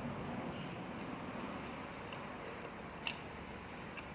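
Steady low background noise with a single light click about three seconds in, as of a small tool touching down.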